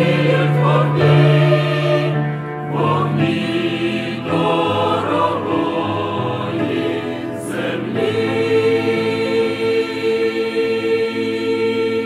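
Mixed church choir of men's and women's voices singing a hymn in chords, ending on a long held final chord over the last few seconds.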